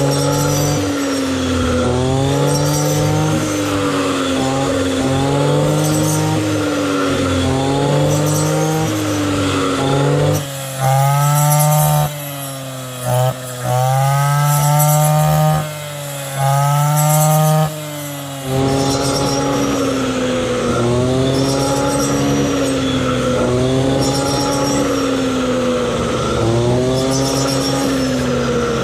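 Instrumental background music: a wavering, repeating melody over a steady low line. The bass drops out for a stretch in the middle and then returns.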